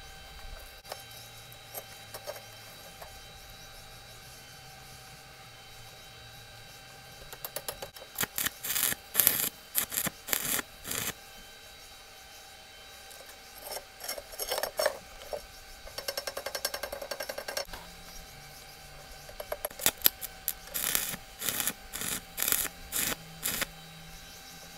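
Electric arc welding on rebar: short crackling bursts as joints are tacked, in a run about a third of the way in, a shorter stretch in the middle and another run near the end. A faint steady tone sits underneath.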